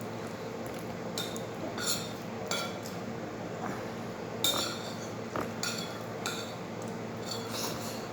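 Cutlery clinking and scraping against a plate in a series of short, scattered clinks, over a steady low hum.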